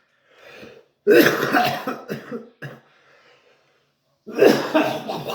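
A person coughing hard in rough fits: a long bout of coughs about a second in, a short one after it, then another bout near the end after a brief pause.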